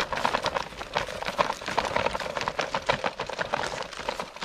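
Small folding bicycle being pushed along a rough, uneven path: a dense, irregular clatter of clicks and crunches.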